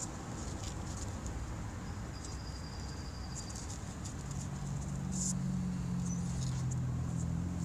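Fingers rubbing and flicking the paper pleats of a pleated cabin air filter, giving soft scratchy clicks over a steady low rumble. A louder low hum comes in about halfway through and holds.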